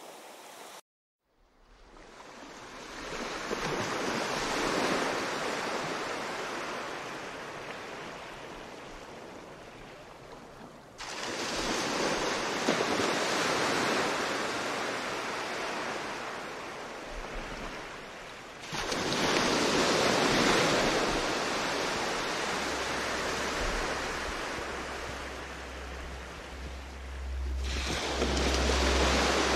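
Ocean waves washing onto a shore in long surges that swell and then fade, each new surge coming in suddenly, after a brief dropout to silence about a second in. A low rumble grows under the surf near the end.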